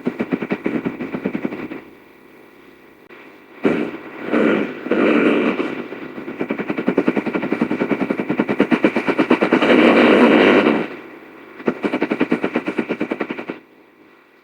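Invented alien-lizard creature call, layered from animal and monster sound effects: a rapid, rattling chatter-growl in several bursts. The longest burst runs for about six seconds, and the last ends about a second before the close.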